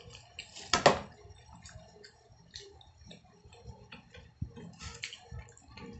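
Close-up eating sounds of a person eating fried pork chop and rice by hand: one sharp, loud click about a second in, then scattered soft chewing and lip-smacking clicks.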